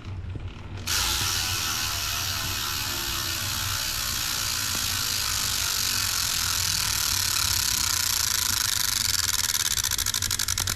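Bicycle freewheel clicking as the rear wheel spins without pedalling: a fast, even ticking of the pawls over a steady hiss.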